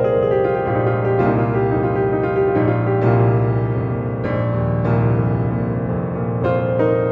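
Solo piano piece: chords struck every second or so and left to ring.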